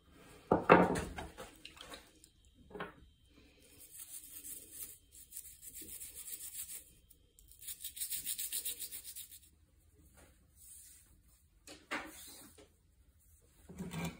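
Rotax 377 rewind starter parts being cleaned in a metal pan of foaming cleaner. A part goes in with a clatter under a second in, then come two stretches of hissing, scrubbing noise, each a few seconds long. A couple of handling knocks follow near the end.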